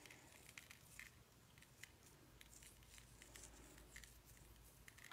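Near silence, with faint scattered ticks of kosher salt grains being pinched between fingers and sprinkled onto wet watercolor paper.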